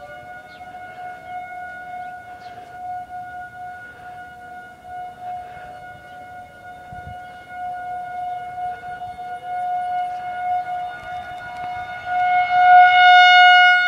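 A Federal Signal 2001 rotating outdoor warning siren sounds a steady alert tone. It swells sharply louder about twelve seconds in, as its rotating horn comes round toward the listener, and is loud at its peak. A fainter distant siren wails up and down beneath it, sounding the attack signal.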